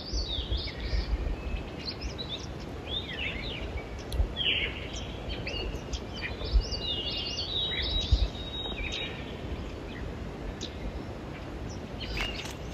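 Songbirds singing and calling at dusk, several overlapping chirps, whistles and short sweeping notes, thinning out in the last few seconds. A low rumble runs underneath, with a brief rustle near the end.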